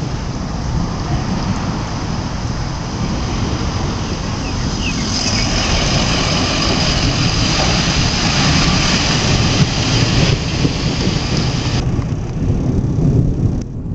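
Emergency vehicle's engine running nearby, a steady low rumble, with a stretch of louder hiss from about five to ten seconds in.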